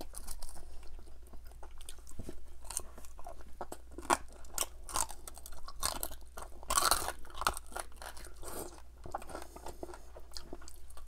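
Close-miked biting and chewing of crispy fried chicken drumsticks: irregular crunches and chewing, with a few louder crunches near the middle.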